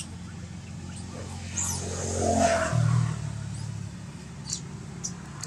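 A motor vehicle passing by, its engine sound swelling to a peak about two and a half seconds in and then fading away.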